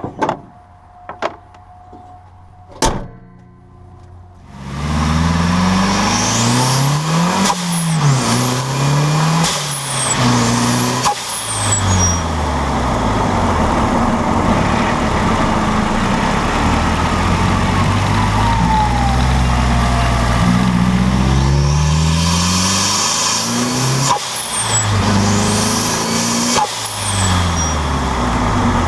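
Mazdaspeed 3's turbocharged 2.3-litre four-cylinder pulling hard through several gears, the revs climbing and dropping at each shift. The turbo whistles as it spools, and the CX Racing blow-off valve vents at the shifts. A few sharp clicks come first, before the engine comes in loud about four seconds in.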